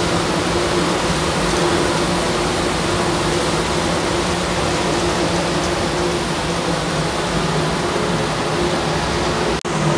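Steady rushing of the churning wake behind the passenger ship KM Tidar, over a low, even hum from the ship's engines. The sound cuts out for a moment near the end.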